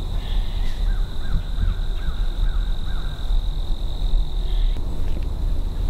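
A bird calling a quick run of about six short, even notes in the first half, over a steady high-pitched insect drone and a constant low rumble.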